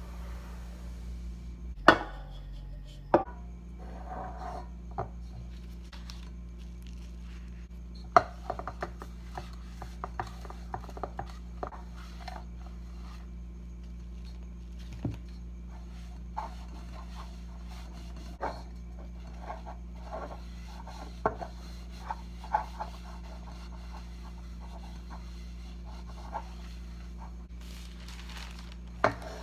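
Kitchen handling sounds on a wooden table: scattered knocks and clinks from a glass mixing bowl and a round aluminium cake pan being handled and set down, two loud knocks about two and three seconds in, and rubbing as the pan is wiped with paper and lined with parchment. A steady low hum runs underneath.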